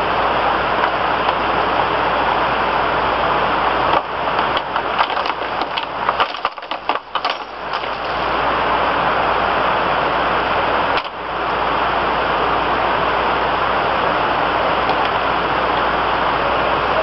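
Loud steady hiss of noise like static, turning crackly and breaking up between about four and eight seconds in, with a brief dip about eleven seconds in.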